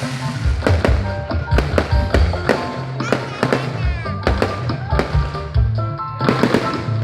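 Fireworks going off in rapid, irregular bangs and crackles several times a second, over loud music with a steady bass.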